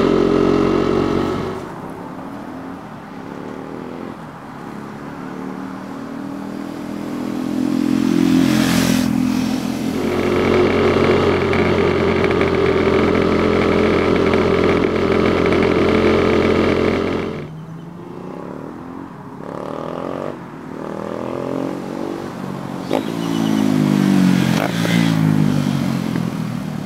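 KTM Duke 390's 373cc single-cylinder engine through a Leo Vince slip-on exhaust with the baffle removed, ridden on the road: the revs fall, then climb and hold steady under way. After a drop at about 17 seconds, the bike is heard passing by from the roadside, its note rising and then falling.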